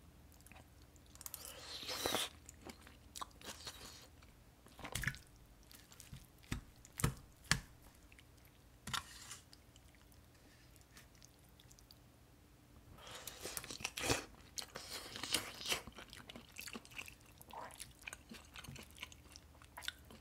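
A person chewing and crunching a mouthful of stir-fried kimchi and pork, in bursts with scattered short clicks between.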